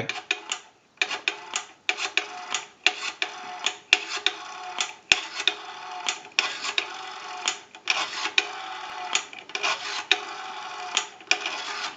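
A payphone being dialed digit by digit: a run of irregular sharp clicks over steady line tones that come and go, heard through an amplified pickup on the handset receiver.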